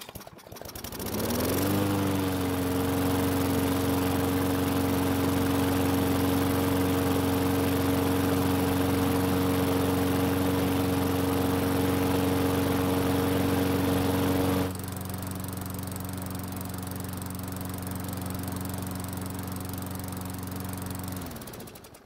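Briggs & Stratton lawn mower engine starting, coming up to speed in the first couple of seconds and then running steadily; it starts right up and sounds really healthy on fresh gas, now that the diesel someone put in the tank has been replaced. About two-thirds of the way through the sound turns abruptly quieter and duller, and it fades out near the end.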